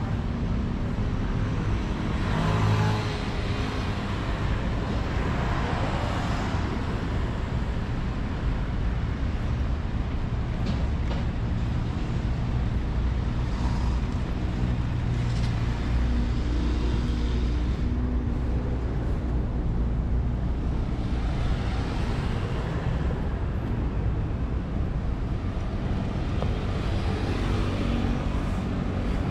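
City street traffic: a steady low engine rumble, with vehicles passing now and then.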